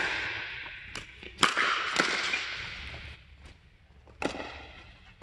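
Pickleball rally: paddles striking a hard plastic pickleball, several sharp pops with a long echo after each in a large indoor court hall. The loudest hits come at the start and about a second and a half in, with softer ones after.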